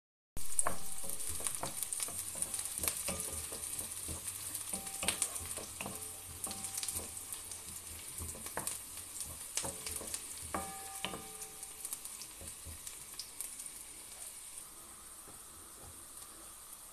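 Sliced onions sizzling in hot oil in a wok while a wooden spatula stirs them, scraping and knocking on the pan with some short ringing knocks. The knocks thin out after about twelve seconds and the sizzle carries on more softly.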